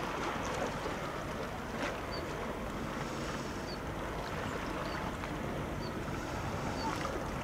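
Steady outdoor wind and water noise, with wind buffeting the microphone. A faint, short high chirp repeats about once a second from about two seconds in.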